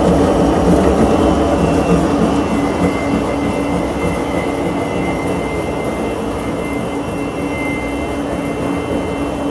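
Empire AR 300 spiral mixer running steadily at high speed, its motor and drive giving a constant mechanical hum. A faint high whine joins about two and a half seconds in.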